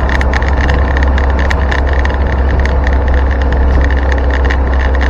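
Land Rover Series 2 station wagon under way, heard from inside: a steady low engine and road drone with a constant rapid rattle from the body. The owner puts the rattle down to the thick gasketing he fitted in place of Land Rover's rubber buffers.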